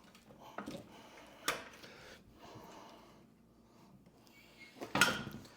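Knocks and clunks of table saw parts and packaging being handled: a light knock about half a second in, a sharper one about a second and a half in, and the loudest clunk near the end.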